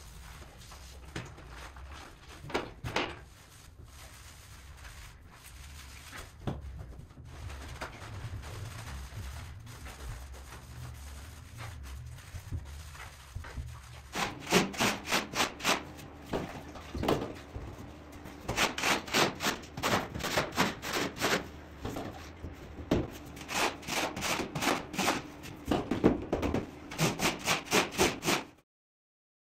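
A long-handled cleaning brush scrubbing and scraping along plaster walls and floor. It is quiet with occasional strokes at first, then from about halfway turns to brisk, rhythmic strokes, two or three a second, and cuts off just before the end.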